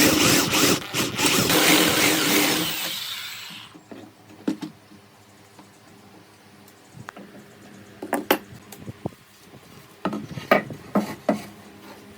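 Wood being worked with a tool: a loud rasping, rubbing noise that fades out about three seconds in, followed by a few light knocks.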